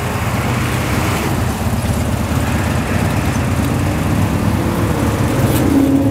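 Street traffic at an intersection: a motor vehicle's engine running close by, giving a steady low rumble, with a brief higher engine tone near the end.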